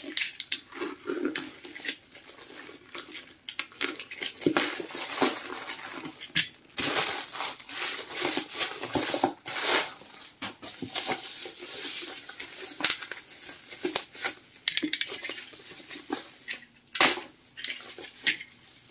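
A parcel being unpacked by hand: packaging rustling and tearing, with scattered clicks, knocks and clatters as it is handled.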